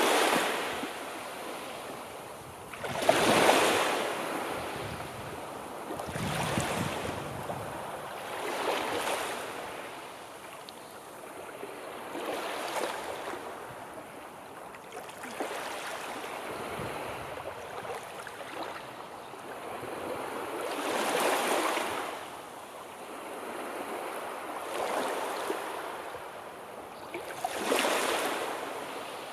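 Sea waves washing ashore, the surf swelling and falling away every few seconds.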